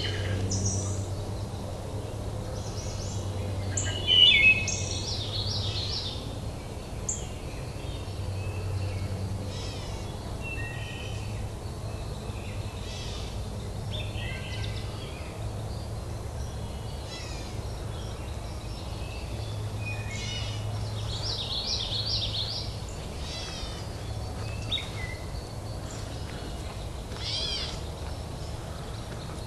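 Several wild birds chirping and trilling, their calls overlapping throughout, the loudest call a little after four seconds in. A steady low hum runs underneath.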